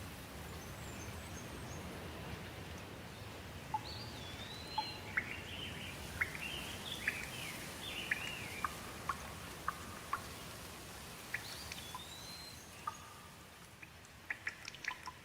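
Steady rain with birds calling through it: short chirps and whistled rising-and-falling notes from about four seconds in, thinning out toward the end, where a few sharp drips come in.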